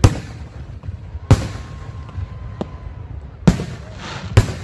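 Fireworks going off: four loud bangs spaced one to two seconds apart, each trailing off briefly, with a smaller pop between them.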